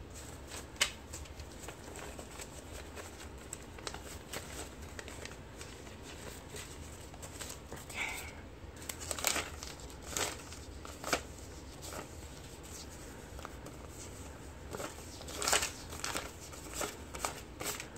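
Paper banknotes being counted and handled: intermittent rustling and crisp flicks of the bills, in small clusters.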